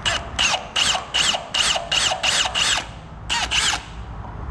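Milwaukee M18 Fuel cordless drill boring out a rivet, the bit squealing against the metal in short rhythmic pulses, about four a second, with a brief break about three seconds in.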